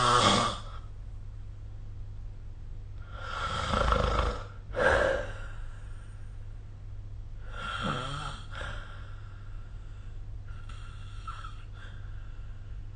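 A sleeping person snoring, one snore every three to four seconds over a steady low hum. The loudest come near the start and about four to five seconds in, and the last one near the end is fainter.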